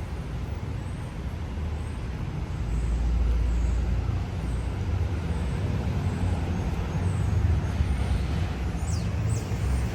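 City street traffic: vehicle engines rumbling past, swelling twice, with a couple of short high chirps near the end.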